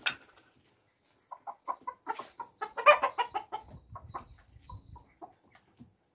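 Domestic chickens clucking as they crowd round for food, a run of short clucks that is busiest and loudest about three seconds in.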